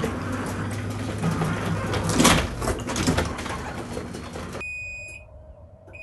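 Electric garage door opener driving the overhead door down onto an obstruction for a force-reverse safety test: a steady mechanical rumble and hum with a loud clunk about two seconds in. The rumble stops abruptly near the end, and two short high-pitched beeps follow.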